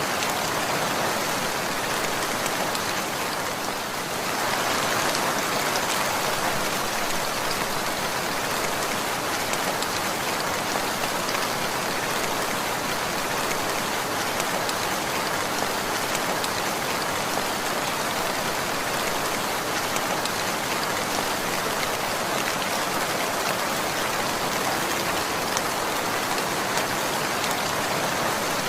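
Steady rainfall, a dense, even patter of raindrops on surfaces, easing slightly for a moment about four seconds in.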